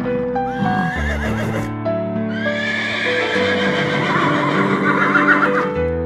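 Horse whinnying: one long neigh starting about two seconds in and lasting over three seconds, quavering near its end, over background music with sustained notes.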